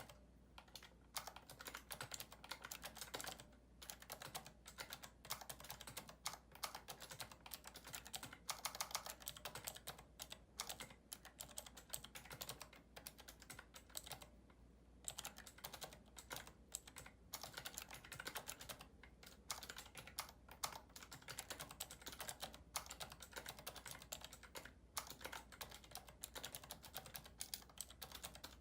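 Rapid touch typing on a keyboard with clicky Cherry MX Blue key switches, a quick, uneven stream of clicks broken by a few short pauses.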